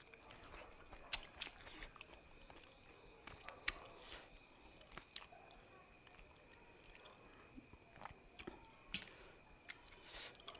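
A person chewing fish, faint and close: scattered small wet clicks and soft crunches from the mouth.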